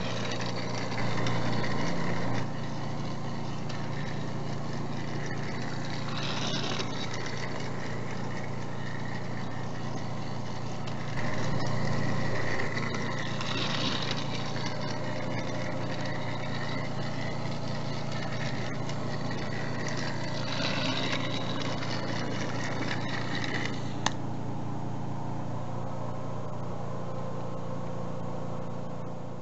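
Battery-powered Trackmaster Thomas toy engine running laps of a plastic track oval, its small motor whirring steadily. A brighter rattle comes about every seven seconds as it goes around. A sharp click comes near the end, after which the sound is duller.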